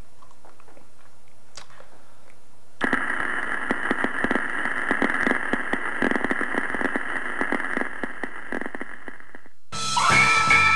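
Dense crackling full of tiny pops, starting about three seconds in and cutting off abruptly about a second before the end, when music begins.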